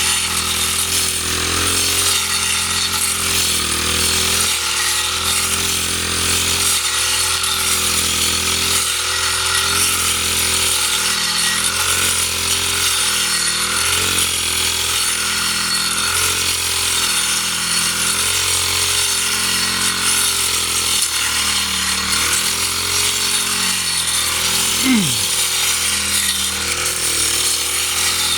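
A small engine-driven cutter runs steadily under load, its engine speed dipping and recovering every second or so as it cuts. About 25 s in, a brief falling whine is heard.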